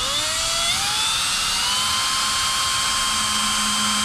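Hitachi cordless drill spinning a twist bit into a wooden frame corner to bore a pilot hole for a screw. The motor whine rises in pitch over the first second or so as it comes up to speed, then holds steady.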